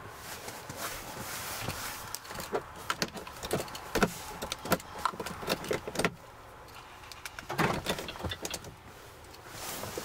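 Irregular clicks, knocks and rustles of someone moving about inside a car's cabin. They come in a busy run through the first six seconds, the loudest knock about four seconds in, then ease off before a short second cluster about eight seconds in.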